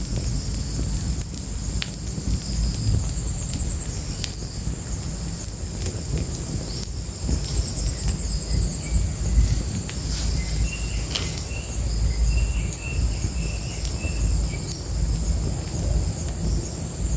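Fire burning with scattered crackles and pops over a low rumble. Insects trill steadily throughout, with a run of short higher chirps in the second half.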